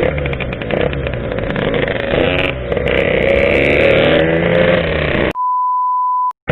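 Yamaha RX-King two-stroke single-cylinder engine running while the bike is ridden, its pitch easing up and down with the throttle over road and wind noise. Near the end the engine cuts out abruptly and a steady pure beep tone sounds for about a second.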